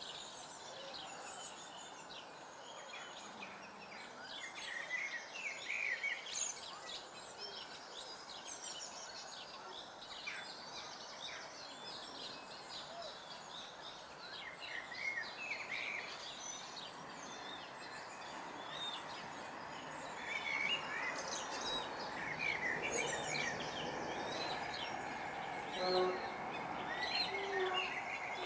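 Wild songbirds chirping and singing over a steady background hiss, with a short, lower-pitched bird call near the end.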